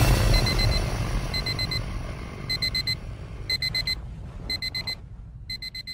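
Electronic alarm clock beeping in quick groups of four short high beeps, about one group a second, growing fainter. A low rumble underneath fades away over the first few seconds.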